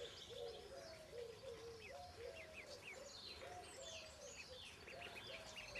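Ducklings peeping: a steady run of short, faint calls, two or three a second, with higher chirps mixed in.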